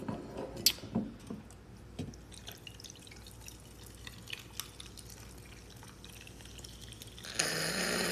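A few sharp clinks and knocks, then a fizzy drink poured from an aluminium can into a frosted glass mug of whisky to make a highball. The pour starts as a faint trickle and becomes a loud fizzing rush near the end as the mug foams up.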